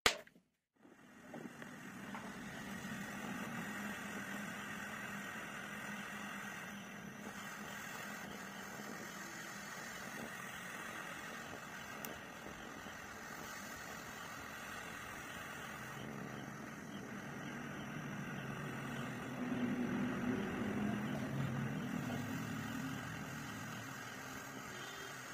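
Small handheld gas torch burning with a steady hiss as its blue flame plays on the cut face of an apple, after a brief sharp click at the very start.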